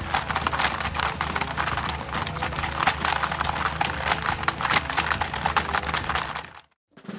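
Rapid, irregular clattering taps over a steady low hum, cutting off abruptly near the end.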